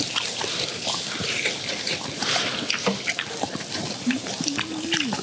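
Skewered chicken hearts sizzling and crackling over a charcoal grill, with scattered small clicks as the skewers are handled. A man's short voiced hum about four seconds in.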